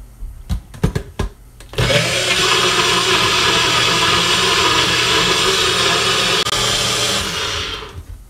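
NutriBullet personal blender pureeing tomatoes, chile and onion into a sauce: a few clicks as the cup is seated on the base, then the motor starts about two seconds in, runs steadily for about five seconds, and winds down near the end.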